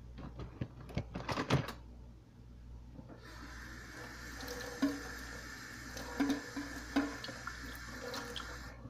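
A few clattering knocks, then a kitchen tap running into a stainless-steel sink from about three seconds in, with a few knocks of dishes while it runs. It is shut off just before the end.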